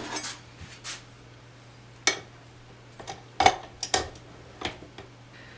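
Stand mixer's flat beater attachment being fitted in place of the whisk: a series of sharp clicks and clanks of the beater on the mixer and its stainless steel bowl, a few near the start and the loudest cluster from about three seconds in.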